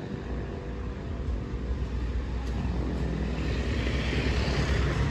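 Motorcycle engine running as it approaches, the low steady rumble growing louder.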